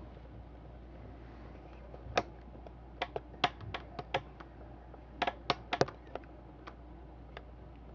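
Scattered sharp clicks and taps, bunched between about two and six seconds in, from handling an aluminium pop can with a heat-softened plastic pipe elbow pressed against its side.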